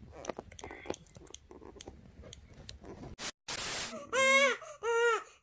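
Faint rustling and small clicks, then a short burst of static-like noise, followed near the end by an infant crying in two rising-and-falling wails.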